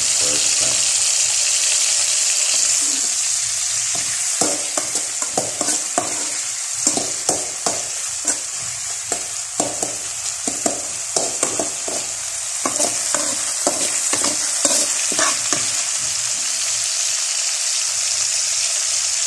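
Chopped onions and garlic sizzling in hot oil in a metal wok, being sautéed toward golden brown. From about four seconds in until near the end, a metal spatula scrapes and clacks against the pan again and again as they are stirred.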